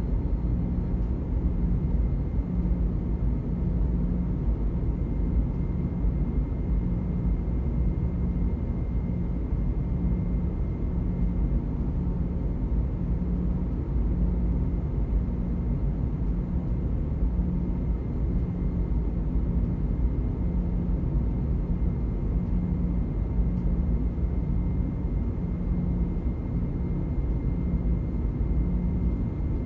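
Steady low rumble of a car ferry's engines and machinery heard from inside a passenger cabin, with a faint thin whine above it.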